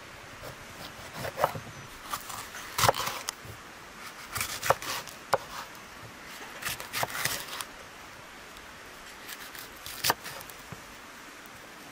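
Kitchen knife slicing a bell pepper into rings on a wooden cutting board: sharp knocks of the blade on the board in short runs of cuts, with pauses between them.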